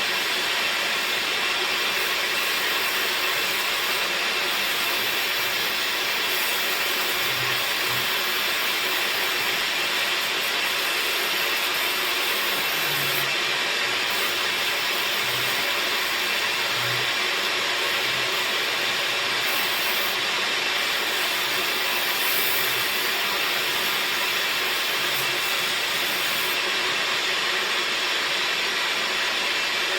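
A woodworking machine running steadily while working teak, giving an even, unbroken noise.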